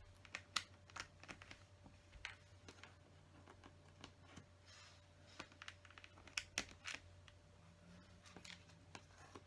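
Small plastic LEGO pieces clicking and tapping as they are handled and pressed into place: scattered sharp clicks at irregular intervals, a few of them louder, over a faint steady hum.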